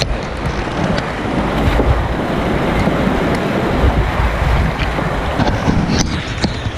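Whitewater river rapids rushing steadily close by, with low rumble on the microphone and a few sharp clicks near the end.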